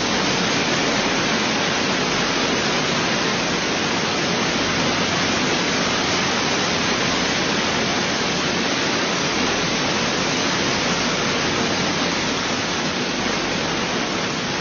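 Heavy hailstorm: hail and rain pelting down in a dense, steady hiss with no let-up.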